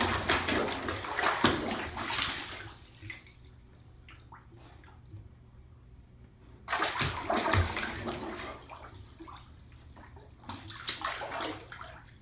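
Bathwater sloshing and splashing as a golden retriever puppy wades and paws about in a filled bathtub, in three bursts: one over the first few seconds, another about seven seconds in, and a shorter one near the end, with quieter stretches between.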